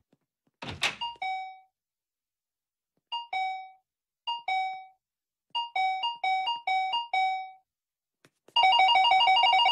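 Electronic two-tone 'ding-dong' shop-door entry chime, set off by a light-beam sensor in the doorframe as someone steps through. A short thud about a second in, then single ding-dongs a second or so apart, then a quick run of five, and near the end the two tones chattering together nonstop as the beam is broken over and over.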